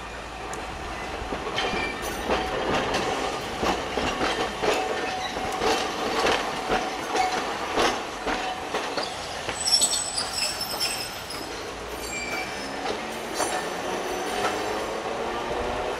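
Hiroden 350-class street tram car 353 passing at close range: its traction motors whine, and the wheels clack sharply over rail joints and pointwork. There is a brief high wheel squeal about ten seconds in, and the motor whine rises in pitch near the end as the tram pulls away.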